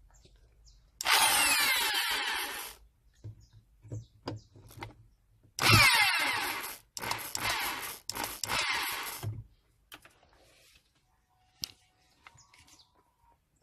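Power drill used as a screwdriver, running in four bursts: one long run about a second in, then three runs in quick succession in the second half, with small clicks and knocks between. It is backing screws out of the car's amplifier rack.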